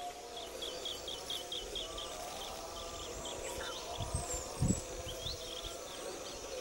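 Bird calling a quick series of short high chirps, about four a second, over a steady insect drone. A few low thuds come a little after four seconds in.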